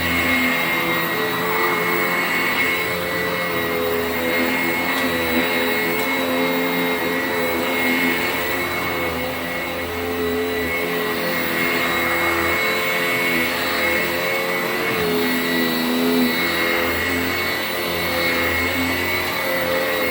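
Sanitaire commercial upright vacuum running steadily on carpet, sucking up junk that it grinds into little bits. A constant high whine rides over a lower hum that wavers a little as the load changes.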